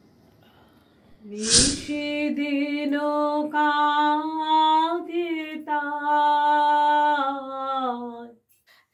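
A woman sings solo and unaccompanied in slow, long-held notes. The voice comes in about a second and a half in, just after a short, loud hiss.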